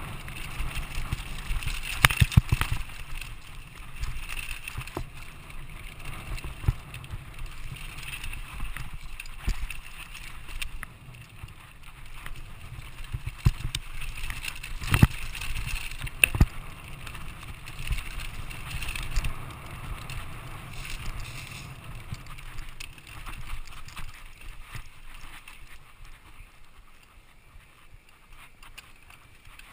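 Mountain bike riding down rough dirt singletrack: tyres rumbling over the ground with frequent rattles and sharp knocks as it hits bumps and rocks. The heaviest jolts come about two seconds in and about fifteen seconds in, and the ride gets quieter near the end.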